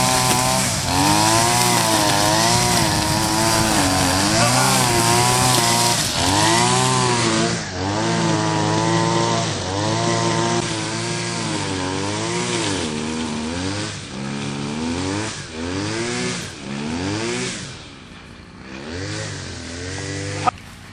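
Chainsaw revved over and over, its pitch rising and falling every second or two, then dying away near the end, with one sharp click just before the end.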